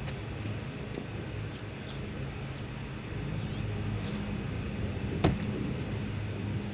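Old rubber door seal being pulled off a truck's door frame, with faint scraping and ticks and one sharp click about five seconds in as a retaining clip pops loose, over a steady low hum.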